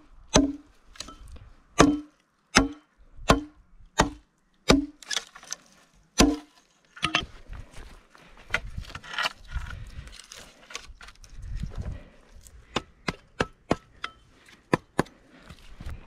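A long wooden pole knocked against a log stump about eight times in steady succession, each blow a hollow woody knock with a short ring. Then footsteps crunch and rustle through dry leaves, twigs and grass.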